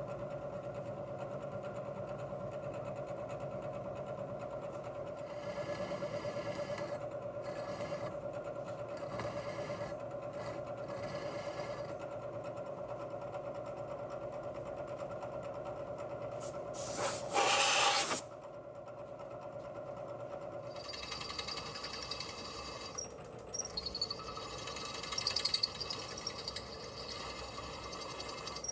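Milling machine spindle running with a steady hum while a drill cuts out broken studs from an exhaust manifold flange, with intermittent scraping as it bites. There is a loud, short rush of noise about 17 seconds in. After about 21 seconds the hum drops slightly and the cutting turns noisier and uneven as a larger twist drill works the hole.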